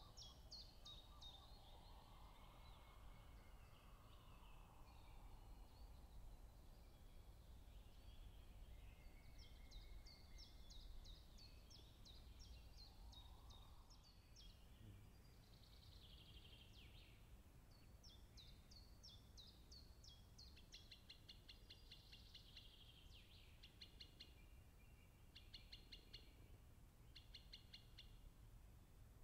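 Faint woodland songbirds singing: repeated short songs of quick descending notes and rapid trills, over a low steady background hum of ambient noise.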